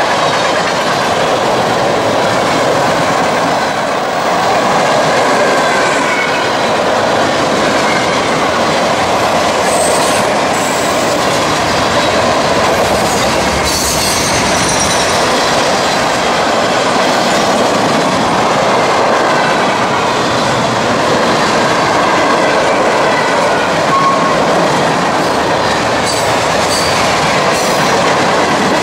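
Freight cars of a CSX manifest train rolling past at steady speed: continuous rumble and clatter of wheels on the rails, with faint high squeals from the wheels now and then.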